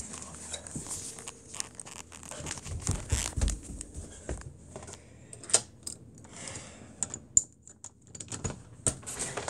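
Handling noise from a phone held while walking down carpeted stairs: rustling and clicking, with low thuds of footsteps about three seconds in. Sharp clicks in the second half as a hand reaches for and grips a door knob.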